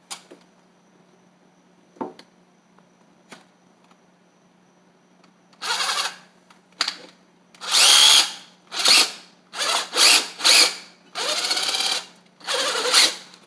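Cordless drill run in about nine short, stop-start bursts against a window frame, starting about five seconds in, its motor pitch rising as each burst spins up. Before that, only a few faint clicks.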